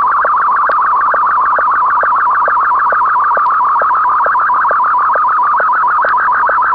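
Slow-scan television (SSTV) transmission audio: a loud, fast-warbling electronic tone, with a short sync beep about twice a second marking the start of each scan line of the picture.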